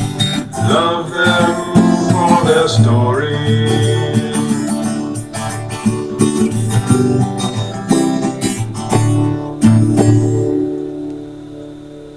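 A sung song ends its refrain over acoustic guitar, the last word held about three seconds in. The guitar then strums on alone and fades out near the end as the song closes.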